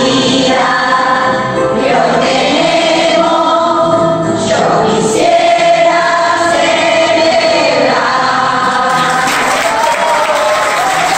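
A group of women's voices singing a song together through microphones, with long held notes.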